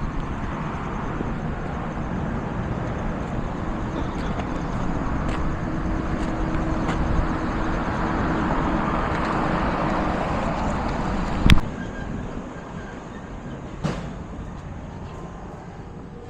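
A motor vehicle engine running, swelling for about ten seconds and then fading away. A sharp knock comes just after it fades, and a smaller one a couple of seconds later.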